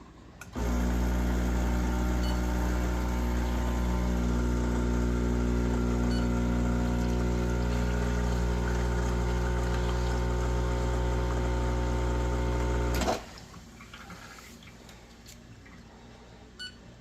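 Espresso machine pump running with a steady hum while pulling a very fast shot. It starts about half a second in and cuts off abruptly about twelve seconds later, the end of the shot. A faint click follows near the end.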